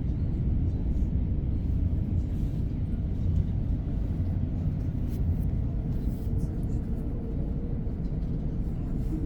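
Steady low rumble of a train running, with a faint steady hum coming in about halfway.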